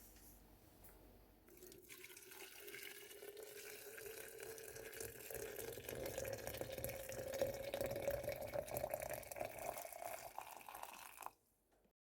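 Boiling water being poured into a container of tea ingredients. The pour starts about two seconds in and its pitch rises slowly as the container fills, growing louder, then it cuts off abruptly near the end.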